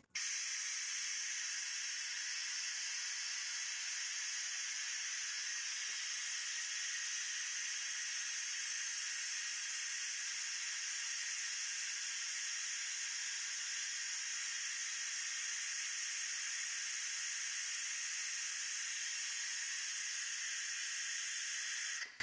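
Compressed shop air hissing through an OTC 8100 pneumatic oil extractor as it pulls a vacuum in its tank: one steady, even hiss that starts and stops abruptly.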